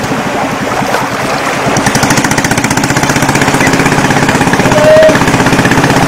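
Small longtail-style fishing boat's engine running steadily, with a fast, even pulsing beat.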